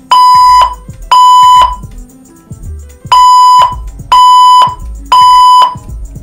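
Fire alarm speaker strobes sounding the temporal-three evacuation tone: loud, steady electronic beeps, each about half a second long, one a second, in groups of three. The last two beeps of one group are followed by a pause and then a full group of three, after which the tone stops.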